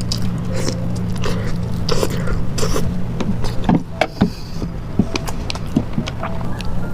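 Close-miked chewing, with many irregular wet smacks and clicks of mouth and food, over a steady low hum.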